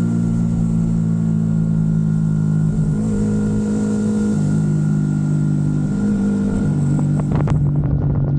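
Motorcycle engine running under way, its note shifting in pitch a few times, with wind buffeting the microphone near the end.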